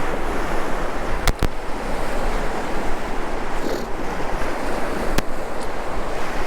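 Sea surf washing steadily onto the beach, with wind buffeting the microphone. A few sharp clicks cut through: two close together just over a second in, and one about five seconds in.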